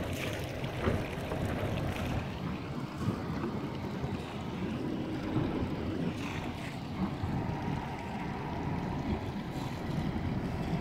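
Wind buffeting the phone's microphone: a steady low rumble, with a few light knocks through it.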